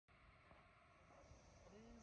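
Faint, steady rush of a whitewater stream over boulders, with a person's voice starting low near the end.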